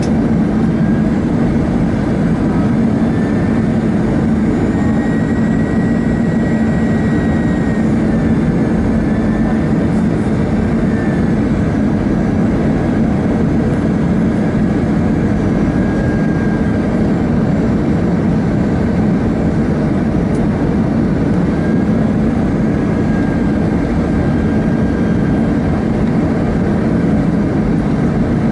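Steady cabin noise of an Airbus A320 on approach, heard from a seat by the wing: jet engine and airflow noise with a low drone, and faint thin whines that drift a little in pitch.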